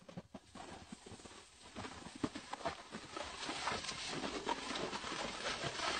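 Beagle puppy tugging and dragging a shopping bag over a tile floor: the bag rustles and crinkles and claws tap on the tiles in quick irregular clicks, getting louder toward the end.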